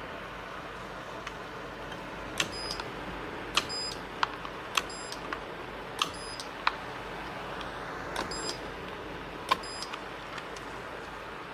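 Battery spot welder firing a string of welds on nickel strip: about eight sharp snaps, a second or so apart, most of them with a short high electronic beep, over steady background noise.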